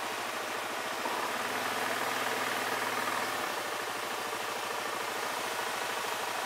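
2017 Yamaha Grizzly 700 ATV's single-cylinder engine running under throttle as the quad works through deep snow. It rises about a second in and eases off again after about three and a half seconds.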